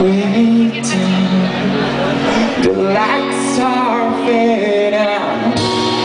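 Live band music: a man singing over strummed acoustic guitar, keyboard and drums, amplified through a PA.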